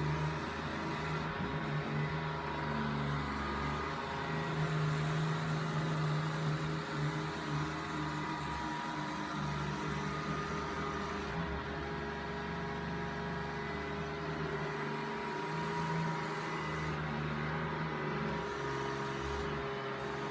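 Samsung Navibot SR8828 robot vacuum cleaner running, a steady motor hum with a few fixed tones whose low part shifts now and then as it works.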